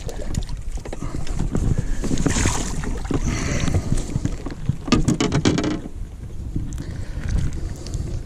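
A hooked bass splashing and thrashing as it is landed by hand from the water, in two noisy bursts with clicks about two and five seconds in. Wind rumbles on the microphone throughout.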